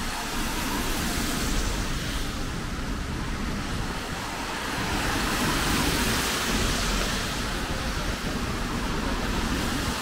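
Rainy street: a steady hiss of rain and traffic on a wet road. About five seconds in the hiss swells for a couple of seconds as a vehicle passes on the wet asphalt.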